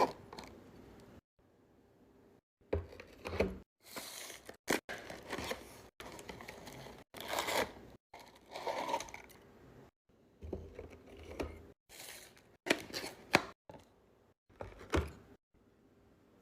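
Cosmetics packaging being torn open and crinkled by hand, in short irregular bursts with sudden silent gaps between them.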